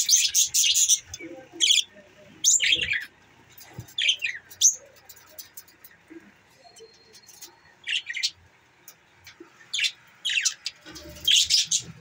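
Budgerigars chirping: a quick run of short high chirps at first, then scattered single chirps and a few short falling calls, with another cluster of chirps near the end.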